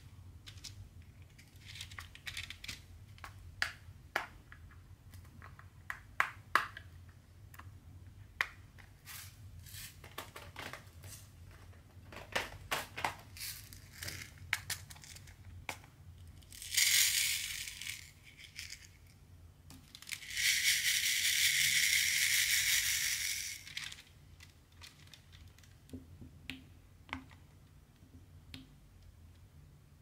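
Light plastic clicks and handling, then two bursts of rattling hiss, a short one and a longer one of about three seconds, as small resin diamond-painting drills are poured from a clear plastic box into a plastic sorting tray.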